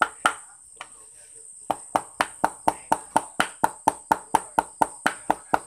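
Raw meat for laab being minced with a heavy knife on a chopping block: rhythmic chops about three a second. They stop about half a second in and pick up again before two seconds. A steady high-pitched drone runs underneath.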